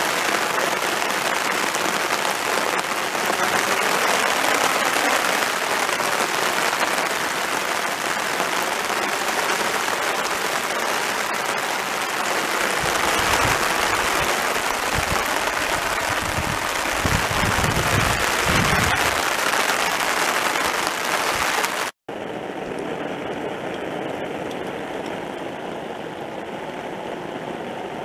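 Heavy rain falling on a paved road and puddles: a loud, steady hiss, with a few low rumbles in the middle. About 22 s in there is a sudden cut, after which the rain is quieter.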